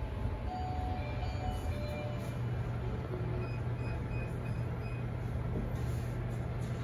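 Steady low indoor hum, with faint background music made of short scattered tones.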